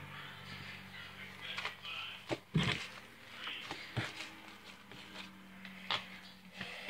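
Homemade slime being squeezed and played with by hand, giving a few short, sharp pops and clicks, the loudest about two and a half seconds in, over a low steady hum.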